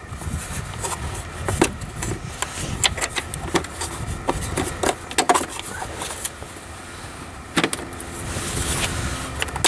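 Plastic air filter housing of a Pontiac Vibe / Toyota Matrix being handled as a new panel air filter is slid in and the housing is seated: scattered sharp clicks, taps and knocks of plastic on plastic.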